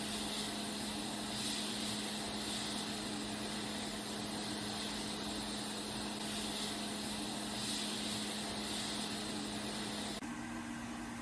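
A steady machine hum with a strong hiss, starting abruptly; its tone shifts slightly and it drops a little in level near the end.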